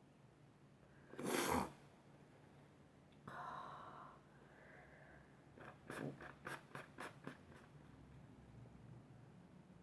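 A single loud sneeze about a second in, followed a couple of seconds later by a short breathy vocal sound. Then comes a quick run of about eight short, sharp sounds, roughly four a second, which fits the sniffing or tissue rustling of a sneezing fit.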